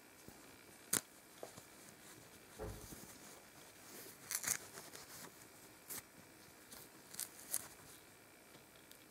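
Hands handling a plush toy rice ball: its fabric nori wrap rubs and pulls in short scratchy scrapes, with a few light clicks and a soft bump about a third of the way in.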